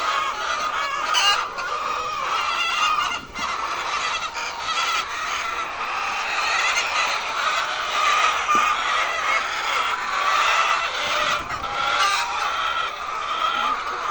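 A large flock of hens clucking and calling all at once, a steady, unbroken din of overlapping calls.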